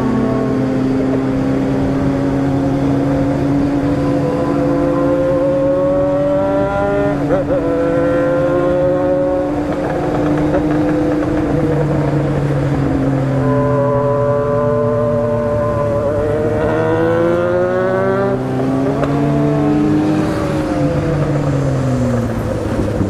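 Kawasaki Z750's inline-four engine under way, its note holding, then climbing under acceleration and falling as the throttle is eased, with a gear change partway through.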